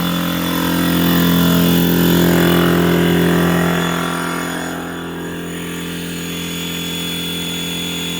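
Air compressor motor running steadily while a riding mower's tyres are aired up. A louder rush of air in the first few seconds eases off about four seconds in.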